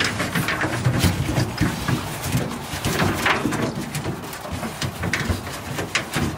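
Bulldog puppies play-fighting, with low grumbling growls and whines, mixed with short clicks and scrapes of their paws and claws on the metal truck bed.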